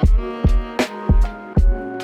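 Background music with a steady beat: a kick drum about twice a second under held, pitched instrument notes.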